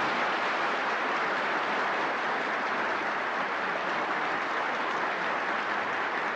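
Audience applauding steadily, the clapping easing slightly near the end.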